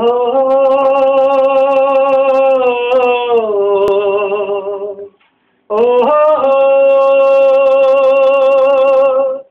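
A man singing unaccompanied, a wordless opening alaap of two long held notes with vibrato. The first lasts about five seconds and steps down in pitch near its end; after a short breath the second holds steady until it cuts off.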